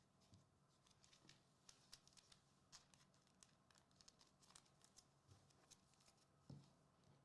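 Near silence: faint, irregular small clicks and rustles of trading cards and foil packs being handled, over a low steady hum.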